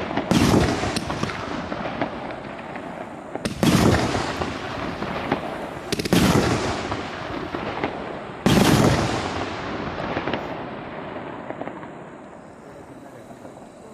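Fireworks going off: four loud bangs about two to three seconds apart, each trailing off in a long crackling tail, dying away near the end.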